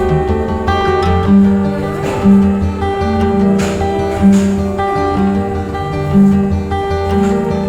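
Background music: acoustic guitar with a steady beat and a bass line.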